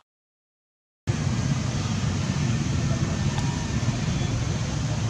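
Outdoor background noise, a steady low rumble with hiss, that starts abruptly about a second in.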